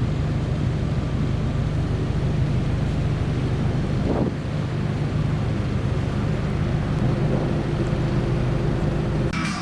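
Steady low drone of a ship's engines under way, with wind buffeting the microphone. Music starts abruptly just before the end.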